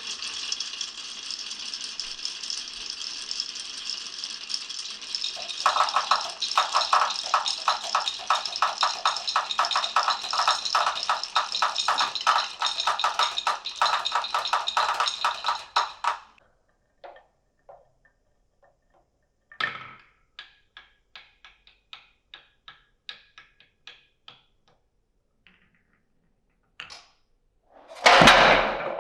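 Many glass marbles rolling and clattering along a wooden marble run, first as a steady rattle, then as dense rapid clicking from about six seconds in, which stops abruptly at about sixteen seconds. After that, single marbles click and tap now and then, and a loud clatter starts near the end.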